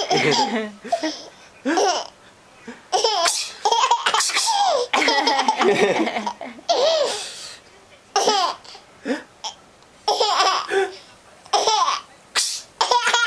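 Twelve-month-old baby laughing hard in repeated fits, with short sharp bursts in between. The laughter is her reaction to an adult's sneezes.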